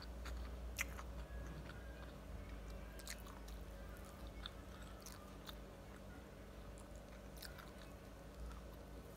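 Faint chewing and mouth sounds of a person eating fried ampog (corn grits) with fried sausage, with scattered small clicks over a low steady hum.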